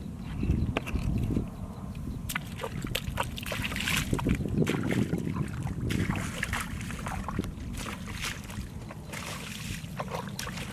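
Bare feet squelching and splashing through shallow water and soft mud as a bucket is lifted and carried, with irregular wet slaps and sloshes over a low rumble.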